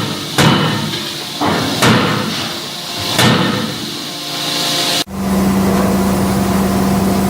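CNC forging hammer striking the work: several heavy blows roughly a second and a half apart, each with a short ring. About five seconds in, this cuts off abruptly to a steady machine hum.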